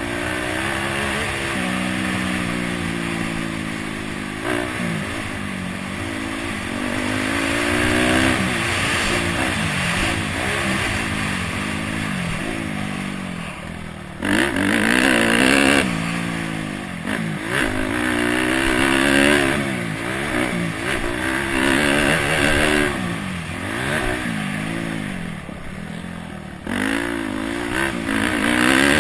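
Honda CRF250X's single-cylinder four-stroke engine being ridden hard around a motocross track, revving up and dropping back again and again as the rider works the throttle and gears. The pitch climbs on each pull and falls off between, with louder surges in the second half.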